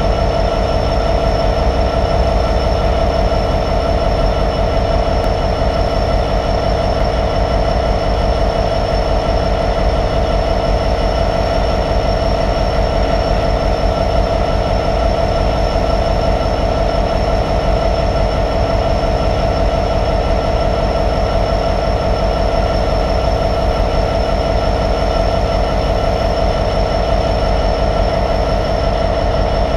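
Class 66 diesel-electric locomotive's EMD two-stroke V12 diesel engine idling steadily while stabled, with a steady high whine above the engine note.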